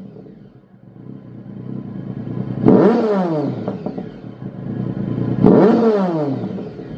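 Triumph Tiger 1050's three-cylinder engine breathing through a Lextek YP4 aftermarket silencer. The stationary bike is revved twice, about three seconds apart, each time rising to a sharp peak and then falling back toward idle.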